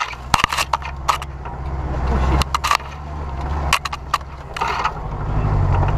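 A motor engine running steadily at low revs, with a series of sharp knocks and rattles close to the microphone.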